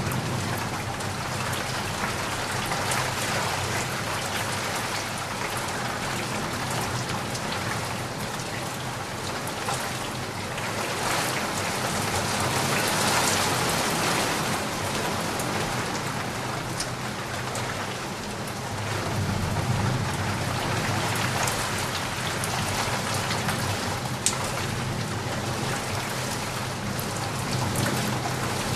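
Heavy rain falling steadily, a dense hiss with sharp drops ticking through it. Low thunder rumbles underneath at the start and again about two-thirds of the way through.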